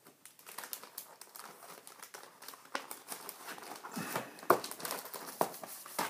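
Packaging crinkling as it is handled, with irregular crackles that are loudest a little past the middle.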